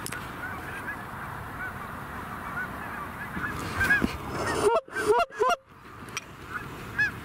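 A flock of Canada geese honking, with many distant calls overlapping throughout. Louder, closer honks come in a burst between about four and five and a half seconds in.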